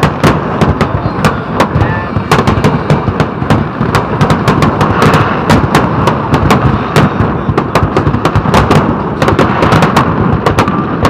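Fireworks display going off in a dense, continuous barrage: loud sharp bangs and crackles, several a second, over a constant rumble.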